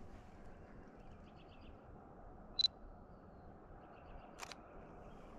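Small birds chirping faintly over a low background hiss, with one louder, short high chirp about halfway through and a brief click near the end.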